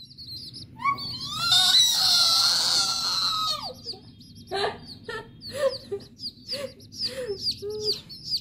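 Baby chicks peeping: a steady run of short, high, falling cheeps. About a second in, a child's voice joins with a long cry that lasts about three seconds.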